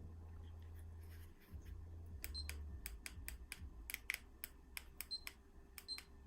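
A run of small, sharp clicks and taps at an uneven pace, a few each second, starting about two seconds in, over a faint low hum.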